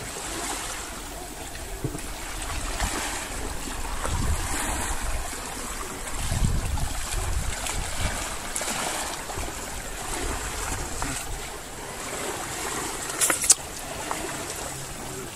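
Small waves lapping against a lakeshore, with wind buffeting the microphone in a low rumble that swells and fades. A couple of sharp clicks near the end.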